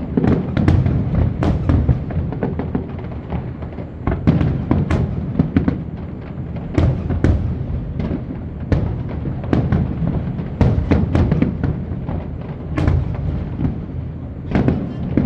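Aerial fireworks going off in rapid succession: many sharp bangs, several a second at the busiest moments, over a continuous low rumble of overlapping bursts.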